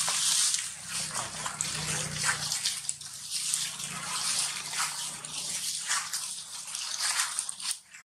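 Dry fallen leaves crackling and rustling underfoot as walking goes on over the leaf litter, a dense run of small irregular crackles.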